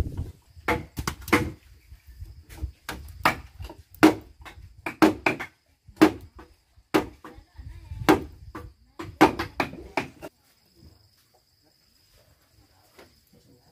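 A long-handled chisel chopping into a dry, tough timber beam to cut a joint by hand: irregular sharp knocks, one or two a second, that stop about ten seconds in. Faint steady insect buzz follows.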